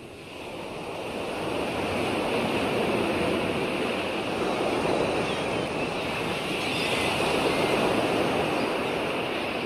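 Ocean surf: a steady wash of breaking waves that swells in over the first couple of seconds and then holds.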